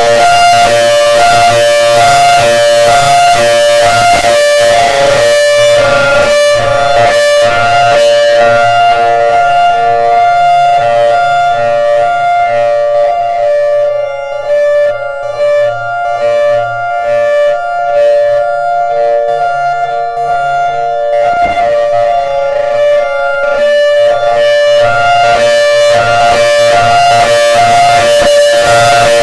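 Outdoor warning siren sounding a steady alert signal: a chord of several held pitches with a fast flutter. Its level and higher tones drop for several seconds in the middle, then return.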